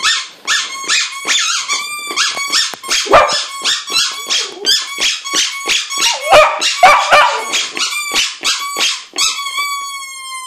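A Lhasa apso howling along with a squeaky toy bone that is squeaked over and over in quick succession, ending with one long drawn-out note that falls slightly in pitch.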